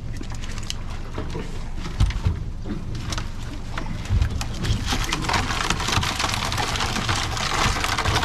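Wet crab pot being shaken out over a plastic crate: water pattering and dripping off the mesh, with clicks and knocks of crabs and the pot frame against the crate and two heavier thumps about 2 and 4 seconds in. The pattering grows denser in the second half.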